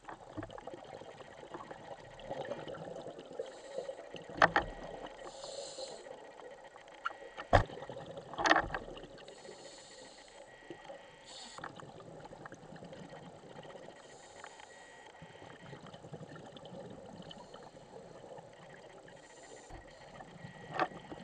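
Muffled underwater sound picked up through a diver's camera housing: a scuba regulator's hiss and bubbles coming in soft bursts every few seconds. Several sharp knocks stand out, the loudest about four and seven seconds in, with one more near the end.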